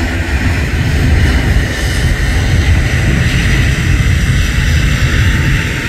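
Airbus A320-232's IAE V2500 turbofan engines at takeoff power during the takeoff roll: a steady, loud rumble with a hiss.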